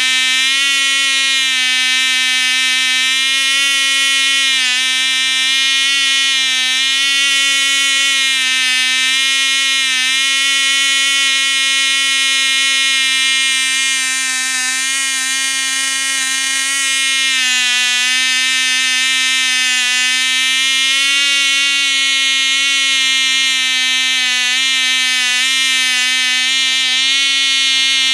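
Cox .049 two-stroke model glow engine with a Merlin glow head, turning a 5x4 prop, running steadily as a high-pitched buzz. Its pitch wavers slightly and dips briefly about two-thirds of the way through before recovering.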